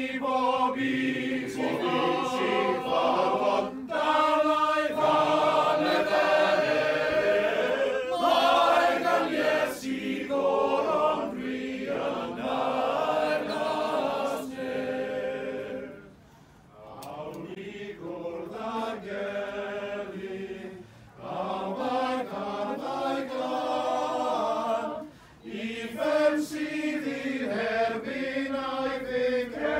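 A male voice choir singing unaccompanied in harmony, with long held notes and a couple of short breaks between phrases.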